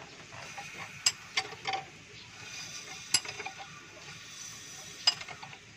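Sharp metallic clicks from hand-tool work during a valve adjustment on a Mitsubishi 4G13 engine with its rocker cover off: about five clicks, irregularly spaced, the loudest near the end, over a faint steady background noise.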